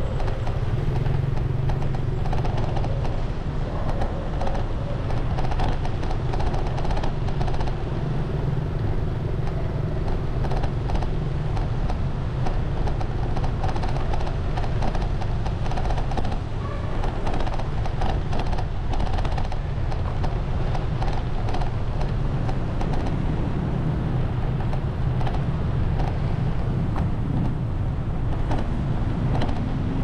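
Steady road traffic noise: vehicle engines and tyres running continuously, with no breaks.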